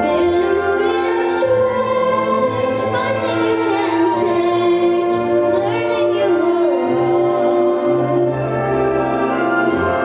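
A young girl singing through a microphone over instrumental accompaniment, holding long, sustained notes.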